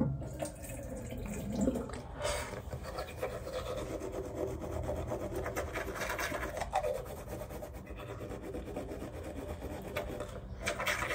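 Teeth being brushed with a manual toothbrush: a continuous, rapid scrubbing of bristles back and forth.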